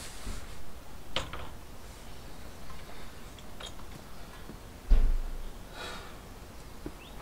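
A large solar panel being handled against a van's side and a ladder: light knocks about a second in, then a single heavy thump about five seconds in, followed by a short rustle.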